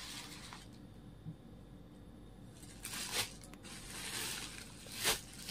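Rustling and crinkling as folded sarees in their packing are handled, with sharper rustles about three seconds and five seconds in.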